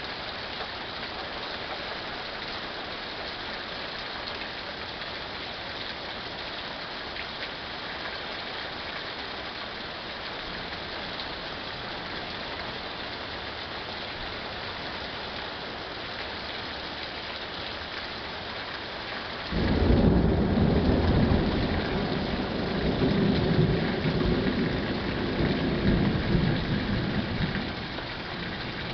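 Steady rain falling. About two-thirds of the way through, thunder breaks in suddenly and rumbles for about eight seconds in several swells, then fades back under the rain.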